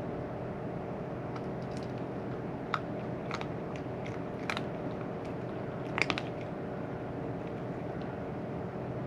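A cat crunching dry food: a handful of sharp, separate crunches spread over a few seconds, the loudest about six seconds in, over a steady low hum.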